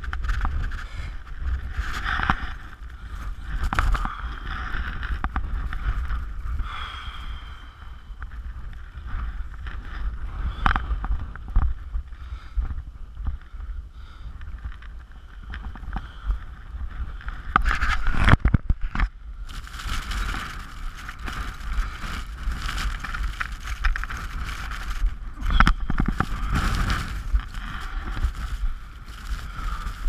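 Strong wind buffeting the microphone, a deep rumble with gusts that swell and fade, loudest a little past halfway, mixed with rustling and knocks of clothing and gear.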